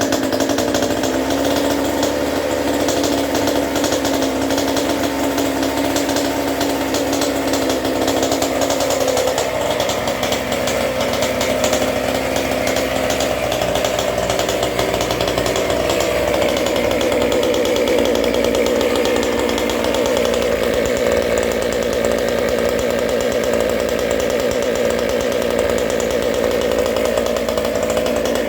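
29cc Goped scooter's small two-stroke engine running steadily after starting, its note climbing to a higher steady pitch about halfway through. It has just been started after sitting unused for about two weeks.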